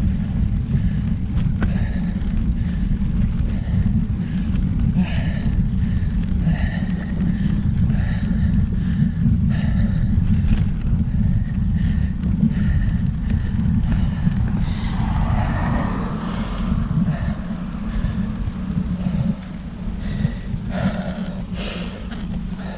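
Wind buffeting the microphone of a moving road bike: a loud, steady low rumble, with faint short noises above it. The rumble eases slightly about nineteen seconds in.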